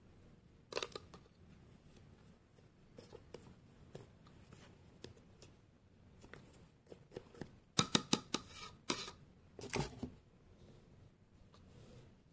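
Metal spoon digging and scraping through protein powder in a plastic tub, with scattered soft scrapes and a cluster of sharp scrapes and clicks about eight to ten seconds in.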